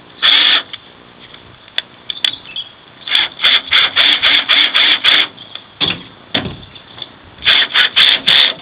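Hand-tool work on the truck's tail-light fittings: a run of short rasping strokes, about four a second, with pauses between the runs.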